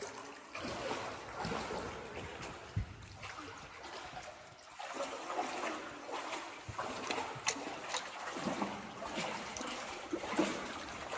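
Cave river water trickling and splashing around inner tubes as they float, with small irregular splashes and drips throughout.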